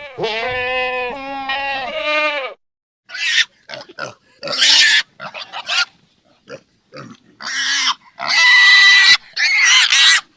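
A few wavering bleats, then a pig squealing and grunting in repeated short, shrill bursts for most of the rest.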